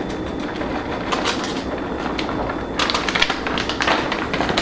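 Plastic bag of shredded vegan cheddar crinkling and a spoon clicking against a measuring cup as shreds are scooped out, with a quick run of crackles about three seconds in.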